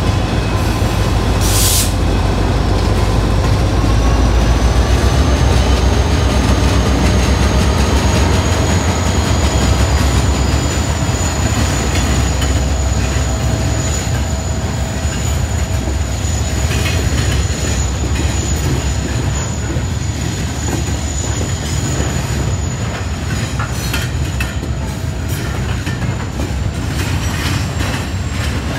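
CSX freight train passing at close range. Its diesel locomotives run past with a low hum in the first several seconds. The freight cars then roll by with a steady high-pitched wheel squeal and scattered clicks of wheels over the rail joints.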